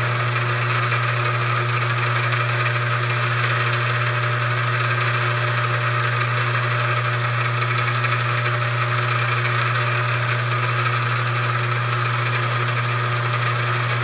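Vertical milling machine's spindle running with a steady, unchanging hum while an end mill is plunged down through an aluminum block.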